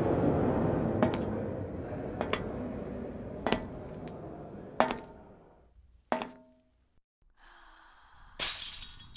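Layered sound-montage effects: a dense rushing noise fades away while sharp clicks land at uneven intervals, a few leaving a brief ringing tone. After a moment of near silence, a short burst of hiss comes near the end.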